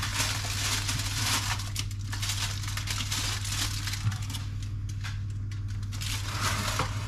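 Aluminium foil crinkling and crackling in uneven bursts as a raw suckling pig is pushed and tucked on a foil-lined baking tray, over a steady low hum.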